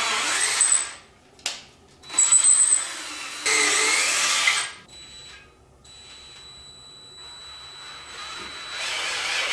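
A handheld power tool, most likely an electric drill, runs in three short bursts of about a second each, then at a lower level for a few seconds before picking up again near the end.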